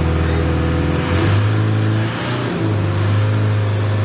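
Isuzu 4BC2 3.3-litre four-cylinder turbo diesel revving while stationary and building a little turbo boost. The engine note steps up about a second in, dips briefly and picks up again.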